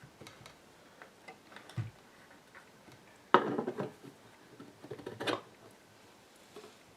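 Small tools and metal parts being handled on a workbench: scattered light clicks and ticks, with a sharp metallic clatter about halfway through and another cluster of clicks a couple of seconds later.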